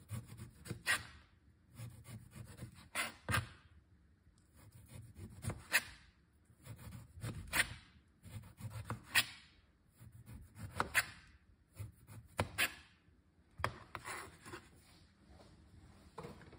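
Chef's knife cutting the peel off a whole lime in strips on a plastic cutting board. The cuts come as a string of short scraping strokes, one every second or two, each ending in a light knock of the blade on the board.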